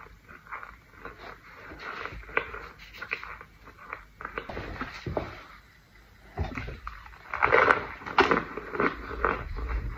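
Crunchy crackling of pressed scented powder, as it is chewed and as gloved hands squeeze and crumble clumps of it over a tray. It comes as many small crackles, thickest and loudest a little before the end.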